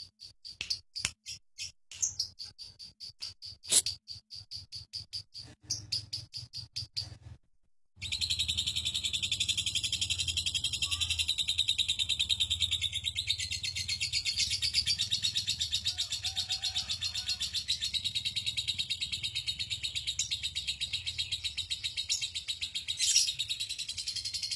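Lovebird ngekek: a rapid, high chattering trill. For the first seven seconds it comes in short stuttering bursts; after a brief silent break it runs on without a pause.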